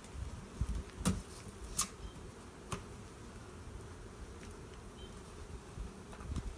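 Honeybee swarm buzzing steadily, with a few sharp clicks about one, two and three seconds in.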